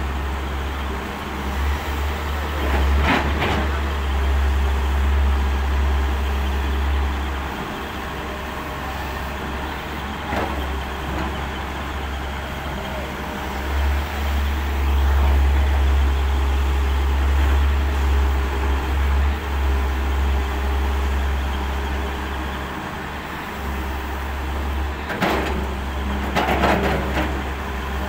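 Hitachi wheeled excavator's diesel engine running under load, its deep rumble rising and easing as the arm works. A few times, around three seconds in, near ten seconds and near the end, stone rubble crashes down into a tractor trolley.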